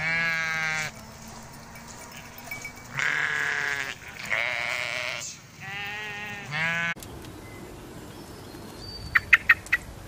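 Domestic sheep bleating: four wavering bleats, each about a second long. After an abrupt change about seven seconds in comes a quieter background with four sharp, quick ticks near the end.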